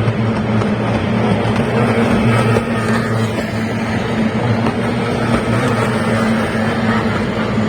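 Racing boats' two-stroke outboard engines running at speed with a steady, even drone.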